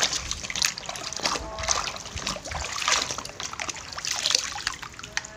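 Water splashing and sloshing in a plastic basin as a toy dump truck is swished about by hand in muddy water, in several uneven surges that die down near the end.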